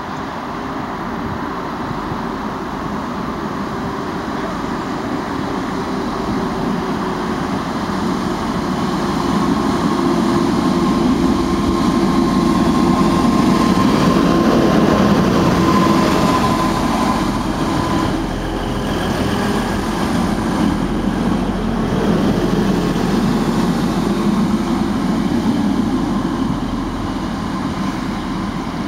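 TransPennine Express Class 185 diesel multiple unit passing through the station. The sound builds to its loudest about halfway through, with a steady high whine for several seconds around the peak, then fades.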